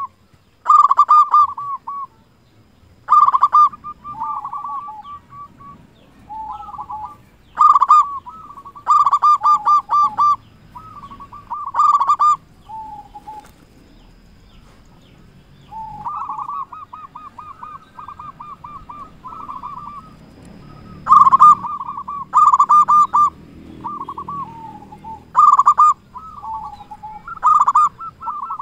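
Local-strain zebra dove (perkutut) singing. It gives repeated phrases of rapid, pulsed coos, some ending on a lower note, with a pause of a few seconds about halfway.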